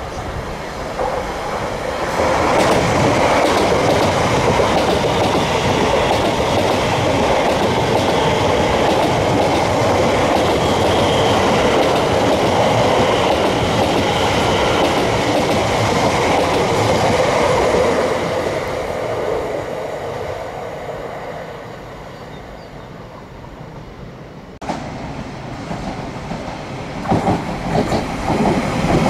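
Train passing on the rails, loud for most of the time, then fading away; near the end, short rhythmic clatter of wheels over rail joints.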